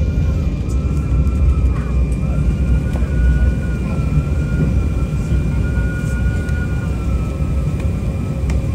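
Cabin noise inside an Embraer 190 taxiing after landing: a steady, heavy low rumble with the thin whine of its General Electric CF34-10E turbofans at idle, wavering slightly in pitch.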